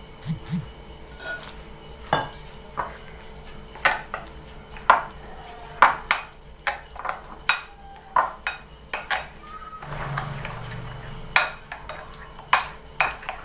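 A metal spoon stirring flour and water into a thick paste in a glass bowl, clinking against the glass in irregular taps, about one or two a second.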